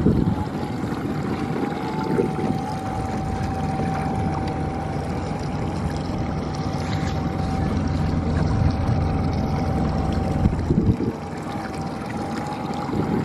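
A 115 hp outboard motor running steadily at trolling speed: a low engine drone with a constant thin whine above it, over water noise against the hull.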